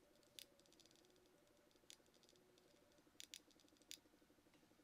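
Faint clicks of the Jumper T16 radio transmitter's buttons being pressed while a mixer name is entered, about six clicks spread unevenly, two of them close together near the end, over near silence.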